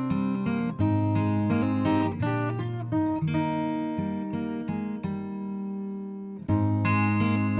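Background music: acoustic guitar strumming and picking chords, easing to a single held chord for a second or so before the strumming picks up again.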